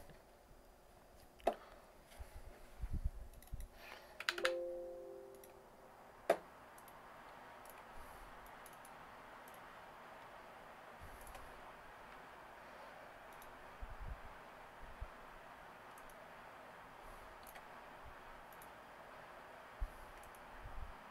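Sporadic computer mouse clicks and a few low desk knocks over a faint steady hiss, with a brief pitched sound about four and a half seconds in.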